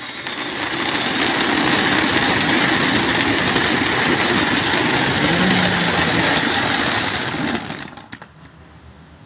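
Duck-shaped ground fountain firework spraying sparks: a loud, steady hiss that swells up, then dies away about seven and a half seconds in as the fountain burns out, leaving a few scattered crackles.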